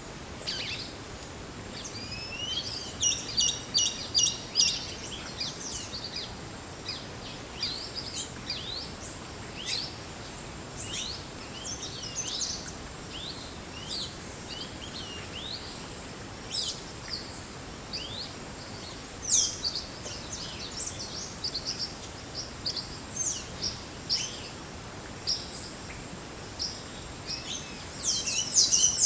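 Several wild forest birds chirping and calling, with short rapid high trills and whistled notes over a steady background hiss and a faint steady high tone. A louder, denser burst of calls starts just before the end.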